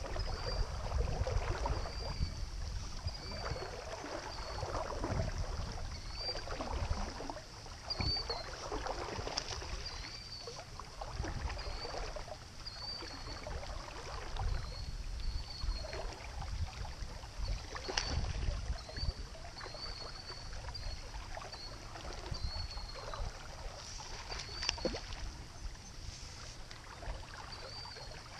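River water swishing and sloshing around a wading angler with a low rumble underneath, while a bird chirps a short high note over and over, about once a second.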